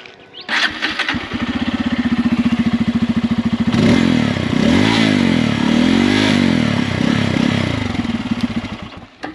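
Bajaj Pulsar N250's single-cylinder engine starting about half a second in and settling into a pulsing idle. It is then revved a few times in the middle, pitch rising and falling with a deep, bassy exhaust note on each rev, before dropping back to idle.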